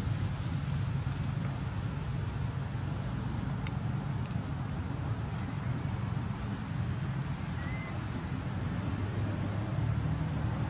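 Steady low outdoor background rumble, with a single brief faint chirp about seven and a half seconds in.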